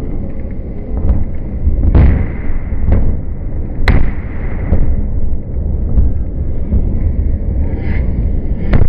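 Slowed-down blasts of the demolition charges bringing down the Greenfield Bridge: a heavy, continuous low rumble with sharp booms about two, four and nine seconds in.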